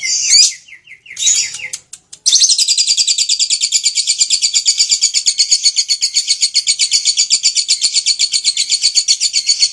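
Lovebird giving a few short high calls, then, about two seconds in, breaking into its long, unbroken 'ngekek' chattering trill: fast, even, high-pitched pulses at about eight a second.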